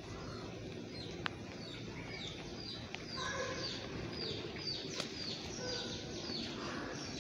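Birds chirping in a quick run of short, high, falling chirps that start about two seconds in, over a steady background noise. A couple of single sharp taps come through as well.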